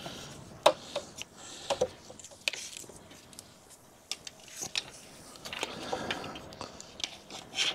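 Evotech perforated metal radiator guard being worked into place on a motorcycle radiator by hand: irregular light clicks and knocks of metal against the bike, with rustling handling between them.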